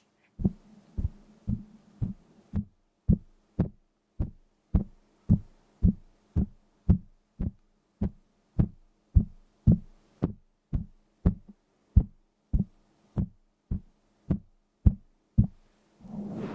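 A steady, even series of short, dull low knocks, about two a second.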